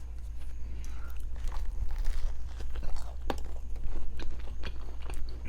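Close-miked chewing and biting of food, with many irregular crunchy clicks.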